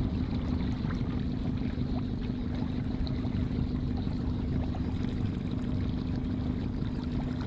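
Boat motor running at a steady pace, a constant low drone, with water rushing past the hull.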